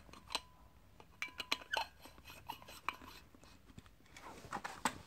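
Light clicks and scrapes of an E27 LED filament bulb being screwed into a plastic lamp socket by hand, with a louder click near the end.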